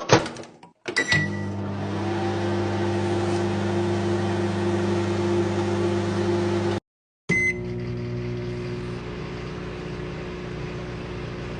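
Microwave oven running with a steady hum. There is a click and a short beep about a second in. The hum cuts out for a moment around seven seconds, then comes back with another short beep.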